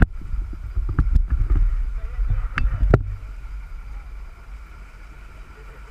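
Sportfishing boat's engines running steadily under way, with wind buffeting the microphone and a few sharp knocks in the first three seconds; the buffeting dies down after about three seconds.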